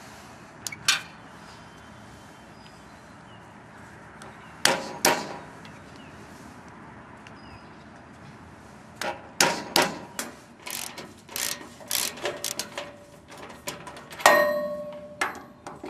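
Wera Koloss ratchet used as a hammer on galvanised steel, metal striking metal. There are two double knocks, then a quick run of many blows from about nine seconds in. About fourteen seconds in comes a loud clang that rings on.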